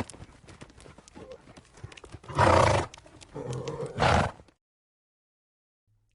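A horse's hooves clopping, with two loud calls from the horse about two and a half and four seconds in; the sound stops about four and a half seconds in.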